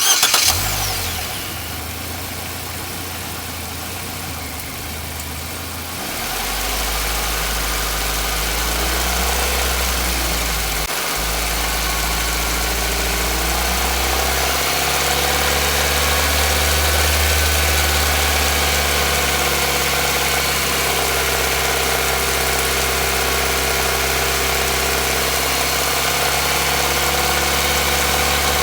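Nissan Micra's HR16DE four-cylinder engine starting with a sudden burst, then running at a steady idle whose note shifts a few times. This is the engine whose owner reports it knocking at certain rpm.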